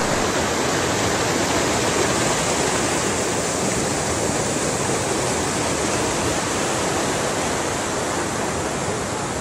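Fast mountain river rushing steadily over rocks through whitewater rapids.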